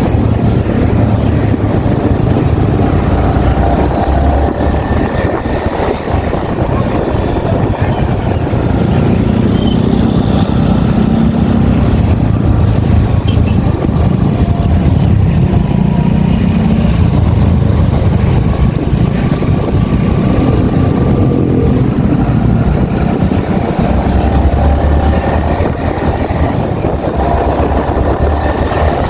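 Yamaha XSR 155's single-cylinder engine and exhaust under way on the road, the engine pitch rising and falling several times as the revs change, over a steady rush of wind and road noise.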